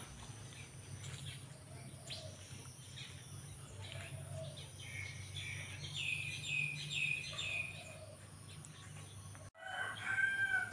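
Birds chirping outdoors, with a quick run of about half a dozen short falling chirps in the middle, over a steady low background hum.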